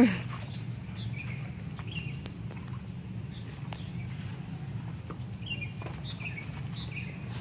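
Birds chirping now and then over a steady low hum, with a brief, loud falling cry at the very start.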